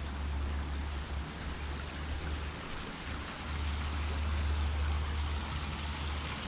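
A small rocky bush creek trickling and splashing over stones, heard as a steady watery hiss. Beneath it runs a low rumble that drops out briefly about midway.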